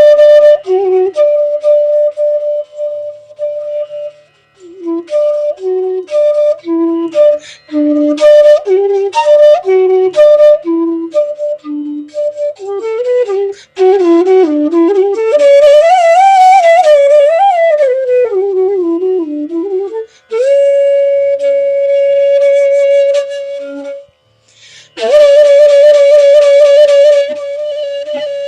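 Bansuri, the North Indian bamboo flute, playing a solo raga melody: runs of short notes around one repeated tone, then a phrase of sliding, wavering ornaments and long held notes, with breathy attacks at the starts of phrases.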